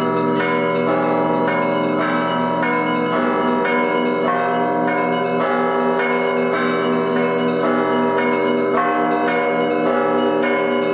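Live Russian-style peal on a set of antique Russian church bells. Small bells are struck in quick, overlapping patterns over the steady ringing of the lower bells, with no pause.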